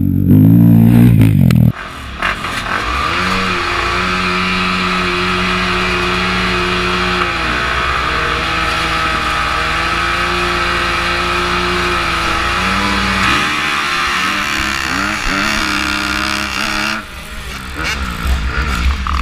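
A dirt bike passes very close for a moment at the start. Then several dirt bikes sit at the start gate held at steady revs, the nearest being a 2015 Honda CRF250R single-cylinder four-stroke. The revs dip and come back up twice and fall away near the end.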